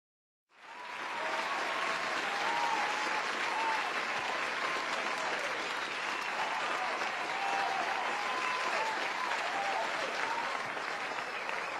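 Crowd applauding, with scattered cheering voices. It starts suddenly about half a second in and holds steady.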